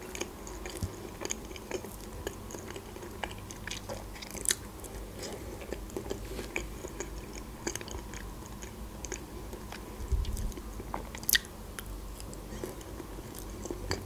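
Close-up chewing of soft cake and banana, with many small wet mouth clicks and a couple of sharper clicks about four seconds in and near eleven seconds.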